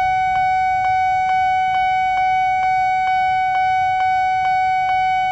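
Railway level-crossing warning bell ringing: one steady ringing tone struck over and over, about two strokes a second, signalling an approaching train as the crossing closes.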